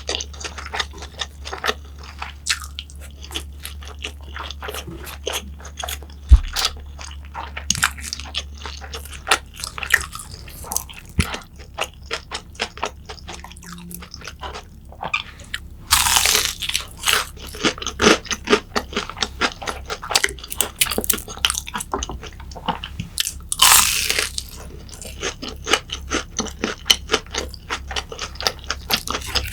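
Close-miked chewing and biting of crunchy food, a steady run of short crunches and clicks, with two longer noisy stretches about halfway through and near the end.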